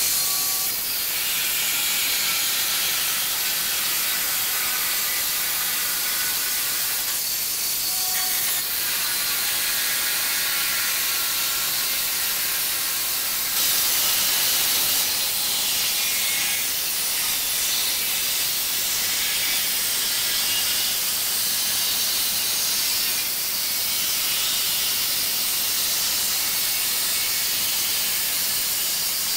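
Angle grinder with a cut-off disc slicing through the corrugated steel wall of a shipping container: a steady, high hissing grind of the disc in the metal, a little louder for a second or so about fourteen seconds in.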